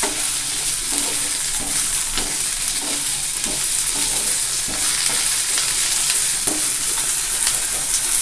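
Diced potatoes frying in hot oil in a non-stick pan with a steady sizzle. A wooden spatula scrapes and turns them in repeated strokes, irregularly about every half second to second.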